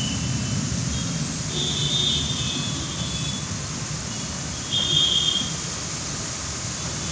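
Heavy rain falling over steady traffic rumble. Two brief high-pitched tones stand out, about two seconds and five seconds in.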